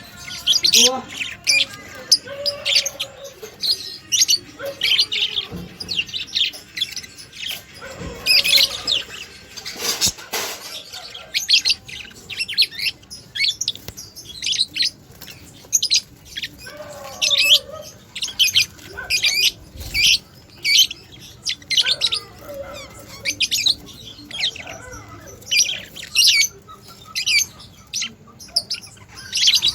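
Budgerigars chirping and chattering in quick, short, high chirps that follow one another almost without pause.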